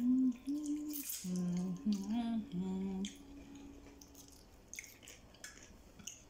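A woman humming a few held notes that step up and down in pitch with her mouth closed, then faint clicks of eating by hand in the second half.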